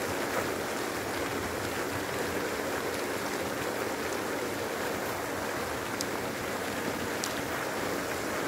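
Steady rushing and splashing of a pond aerator spraying water.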